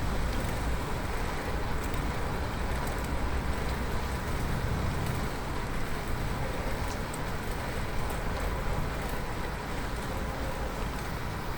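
Steady rushing road noise from a moving bicycle: wind and tyre noise, with motor traffic on the road.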